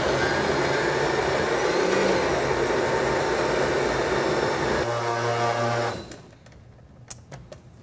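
Countertop glass-jar blender running, churning crumbled tofu and peach pie filling into a smoothie. About five seconds in its sound changes to a steadier hum, and it stops about a second later, leaving a few light clicks.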